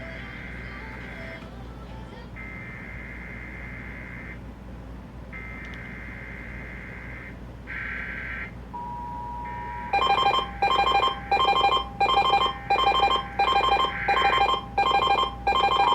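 Emergency Alert System broadcast tones: the warbling digital data bursts of the SAME header sound three times, then the two-tone attention signal (853 and 960 Hz together) begins about nine seconds in. From about ten seconds it is joined by a loud electronic alert tone pulsing about one and a half times a second.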